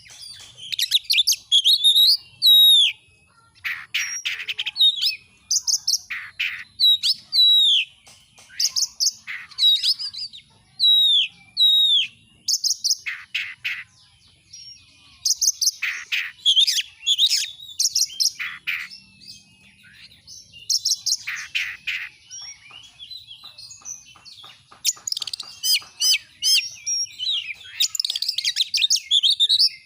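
Oriental magpie-robin (kacer) singing a loud, varied song. Whistled notes, many sliding downward, alternate with fast chattering trills and harsh, raspy notes, in phrases separated by short pauses.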